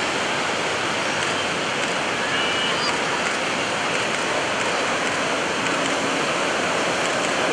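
Steady rushing noise of ocean surf and wind at the beach.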